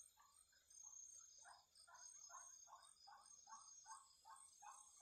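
Faint night chorus of crickets: a high-pitched steady pulsing, with a lower call pulsing evenly about three times a second underneath.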